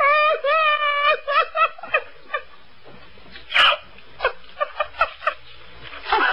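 High-pitched, squeaky cartoon-like voice: one long wavering note, then a quick run of short chirping syllables, with a brief noisy burst about halfway through.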